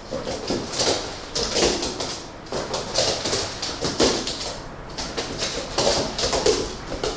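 Broom bristles swishing across a laminate floor in repeated, irregular strokes, mixed with an eight-week-old black Labrador puppy's yips and growls as it plays at the broom.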